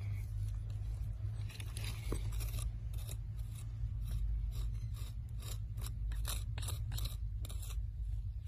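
A twig and a fingertip scraping and brushing through coarse, gritty sand: an irregular run of short scratches starting about a second and a half in, over a steady low hum.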